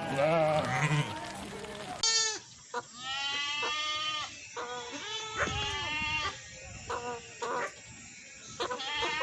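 Goats bleating: a run of wavering calls, several overlapping, with an abrupt switch to another recording of bleating about two seconds in.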